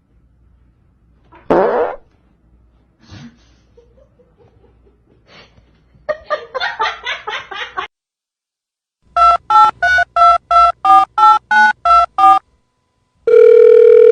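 A quick run of about a dozen telephone keypad tones, each a different pair of pitches, followed near the end by a steady held tone. Earlier come a short loud sweep about one and a half seconds in and a rapid string of pulses around six to eight seconds in.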